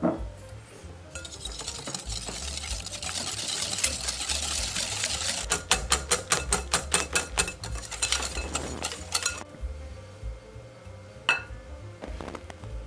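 Wire whisk beating egg yolks and sugar in a glass bowl: a swishing at first, then a quick run of ticks, about seven a second, as the wires strike the glass. A sharp clink at the start is the loudest sound.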